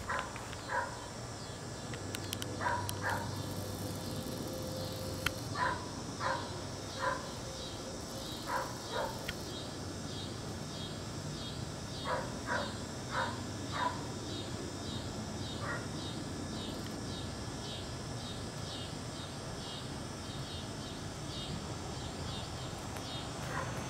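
A dog barking, short single and double barks at uneven intervals that stop about two-thirds of the way through. Under them runs a high, even pulsing chirp two or three times a second.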